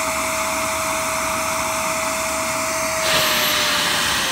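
Wet/dry shop vacuum running steadily, with a steady motor whine, its hose held to the irrigation line's opening to suck the water out of the sprinkler pipes. About three seconds in, the rush of air grows louder and the whine begins to drop slightly.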